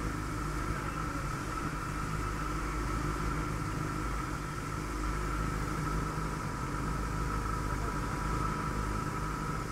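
Benelli 600i inline-four motorcycle idling steadily at a standstill, running without catalytic converter or dB killer through a Micron slip-on exhaust, with a steady high whine above the low engine note.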